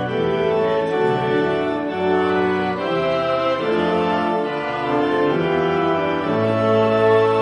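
Church organ playing the melody of the congregation's sung response in the Easter responsory, in held chords that change about every second.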